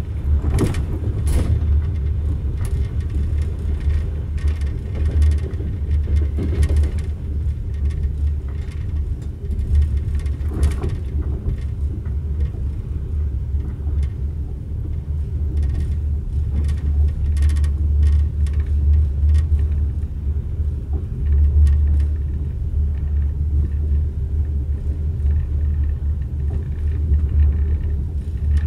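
Passenger train running, heard from inside the carriage: a steady low rumble with scattered clicks and knocks.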